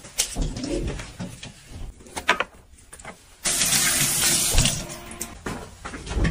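Robot vacuum cleaner running: a steady hiss of its fan and brushes that starts suddenly about three and a half seconds in and lasts nearly two seconds, with scattered clicks and light taps before and after.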